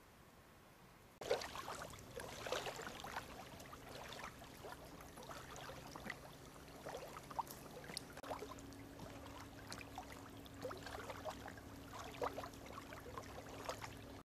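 Running water of a shallow forest stream, gurgling and trickling with scattered clicks and small blips. It starts suddenly about a second in.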